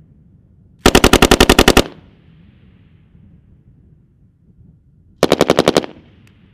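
Belt-fed machine gun firing two short bursts in automatic: about a dozen rounds about a second in, then about seven rounds some four seconds later. Each burst is followed by a fading echo across the range.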